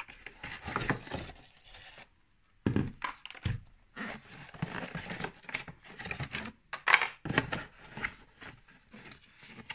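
Cardboard packaging and plastic wrap being handled as a speaker is slid out of its box: irregular rustling, scraping and crinkling with sharp clicks, briefly dropping out about two seconds in.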